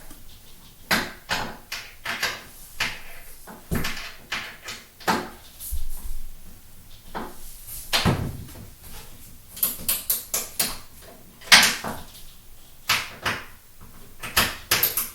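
Screwdriver working a screw in a shower door's hinge: irregular clicks, scrapes and knocks as the tool turns and the door shifts, with two louder knocks about 8 and 11½ seconds in.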